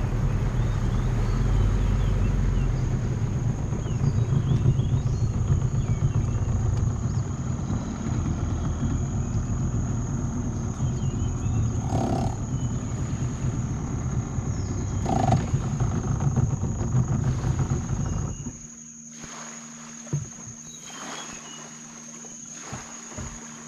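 Small boat engine running steadily, then shut off abruptly about three-quarters of the way through as the boat comes up to the nets. After that the boat drifts, with a steady high insect whine and a few light knocks.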